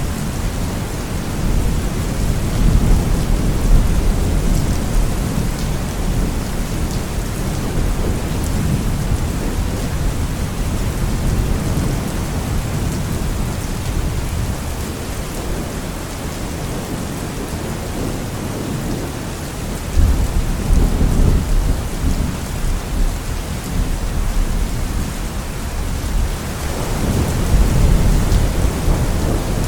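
Steady rain with rolling thunder rumbling underneath. A thunderclap breaks in suddenly about two-thirds of the way through, and another rumble swells near the end.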